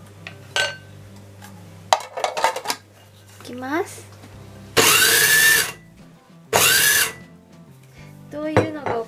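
Food processor run in two short pulses, about a second and then half a second, its motor whirring up to speed each time, while it mashes hot microwaved sweet potato. A few clicks and knocks come just before, as the bowl and lid are handled.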